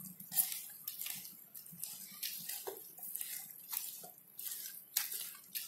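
Rubber-gloved hands squeezing and stirring wet kimchi seasoning paste of chili powder and grated carrot in a metal pot: a run of short, irregular wet mixing strokes.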